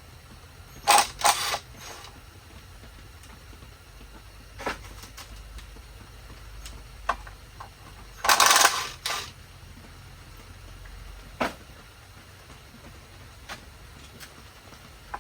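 Metal tools and parts clinking and clattering as they are handled: two short bursts of clatter, about a second in and again past the middle, with a few single clicks between.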